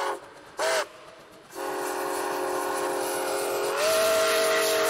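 Chime whistle of the steam locomotive Nickel Plate Road 765, a 2-8-4 Berkshire, sounding a chord of several tones: a long blast cuts off, a short toot follows, then another long blast that steps slightly higher in pitch and grows louder near the end.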